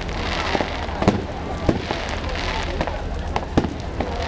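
Fireworks going off at a display: a run of sharp bangs at uneven intervals, about eight in four seconds, over a continuous noisy background.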